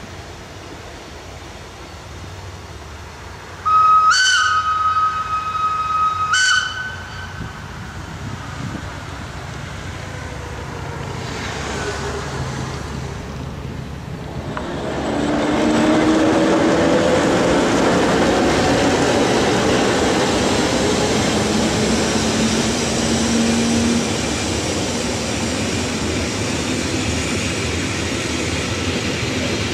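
A train horn sounds once a few seconds in, a held tone lasting about three seconds. From about halfway through, the noise of a Matterhorn Gotthard Bahn narrow-gauge train rolling past builds up and stays loud and steady, with thin squealing tones from the wheels.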